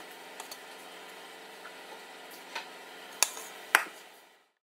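Cake batter being emptied from a bowl into a lined baking pan: a few light clicks, then two sharp knocks of kitchenware about three and three and a half seconds in, over a steady hum. The sound cuts off just before the end.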